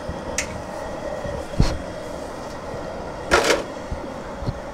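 Propane turkey-fryer burner running with a steady rumbling roar under the fryer pot, with a few brief knocks, the loudest about three and a third seconds in.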